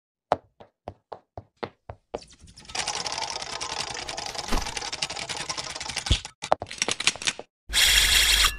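Cartoon sound effects for an animated logo: a run of separate sharp taps, then a long fast clatter like typing, and a short loud noisy burst near the end.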